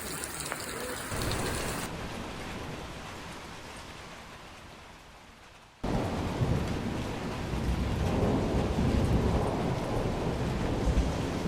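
Storm noise: a rush of water fades away, then after an abrupt cut about six seconds in, heavy rain comes in with a low rumble.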